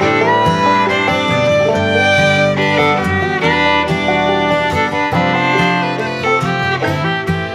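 Background music: an upbeat bluegrass-style tune with fiddle over strummed and picked acoustic guitar.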